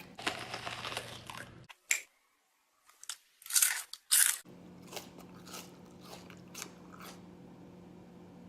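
Biting and chewing a raw purple onion: crunching at first, two loud sharp crunches about three and a half and four seconds in, then softer scattered crunches as the onion is chewed.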